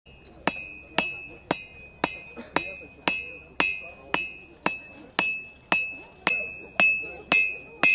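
A smith's hammer striking hot metal on an anvil in an even rhythm, about two blows a second, each blow leaving a bright metallic ring: hand forging.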